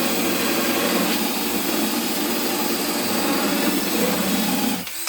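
Electric drill with a hole saw running steadily under load as it cuts a hole, stopping shortly before the end.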